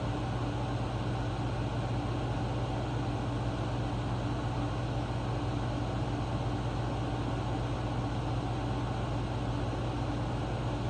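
Air conditioner running with a steady hum and airflow noise.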